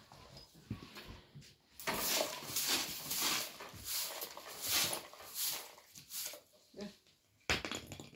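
Short straw hand broom sweeping a dusty earthen floor: a run of brisk swishes, about two a second with pauses. A sharp knock about seven and a half seconds in.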